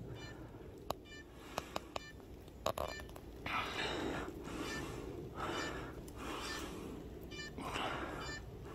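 Short electronic beeps repeating about once a second, with a few sharp clicks in the first three seconds and intermittent bursts of hiss.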